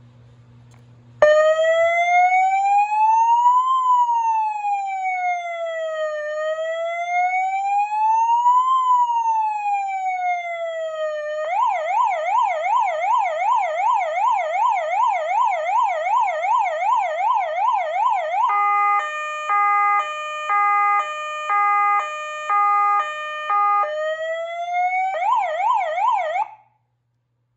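Dracos electronic police siren of a Spanish National Police light-bar system, switched through its tones: a slow wail rising and falling every few seconds, then a fast yelp, then a hi-lo two-tone alternating about once a second, then back to the fast yelp before it cuts off suddenly.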